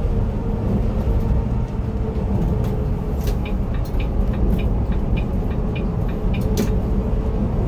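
Cabin noise of a Volvo B11R coach under way: a steady low engine and road rumble, with a run of light clicking rattles in the middle.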